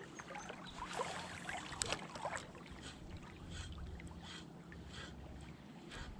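Flowing creek water, a faint steady rush, with a few small clicks and knocks about one to two and a half seconds in.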